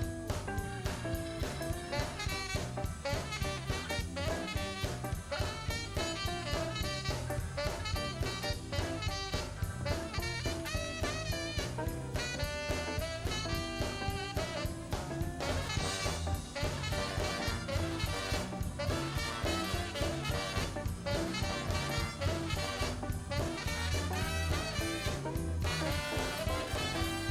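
A band playing a blues number, with a steady drum-kit beat under a wavering lead melody line.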